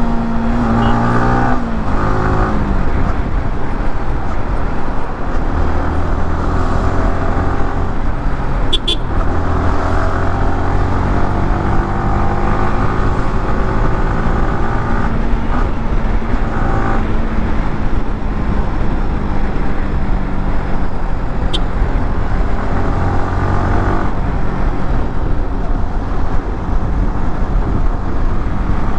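Yamaha R15M's single-cylinder engine running on the move, its pitch falling in the first couple of seconds and then rising and falling with the throttle, over a steady low rumble.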